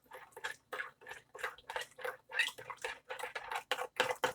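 Sweet and sour sauce of ketchup, sugar, vinegar and soy sauce being stirred, with quick repeated wet strokes, several a second.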